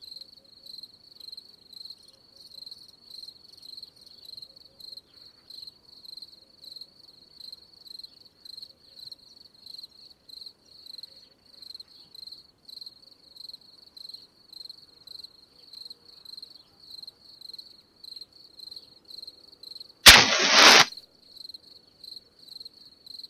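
Crickets chirping steadily, about three chirps a second. Near the end a match is struck and flares in a short, loud rasp.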